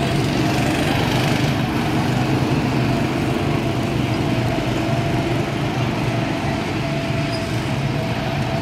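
Small go-kart engines running steadily as several karts drive around the track together.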